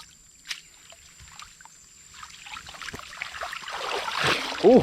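Water splashing and trickling, growing louder from about halfway through, then a short vocal exclamation near the end.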